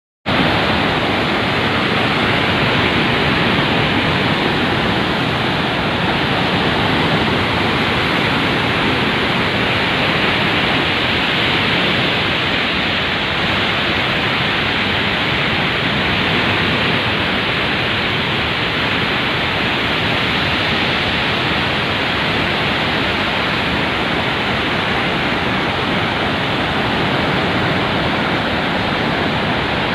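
Heavy floodwater of the Penna River rushing, a loud, steady noise with no let-up.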